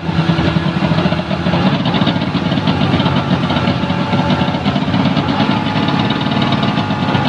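Tohatsu V50 Rabbit portable fire pump engine running steadily on a test run, with a fast, even firing beat.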